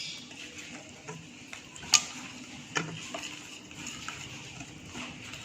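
A whisk stirring pancake batter in a bowl, with scattered light clicks of the whisk against the bowl, the sharpest about two seconds in.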